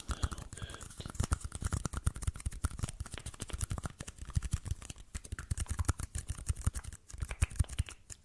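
Rapid tapping on small plastic party cups held right at the microphone: a fast, steady run of crisp taps, with a brief pause near the end.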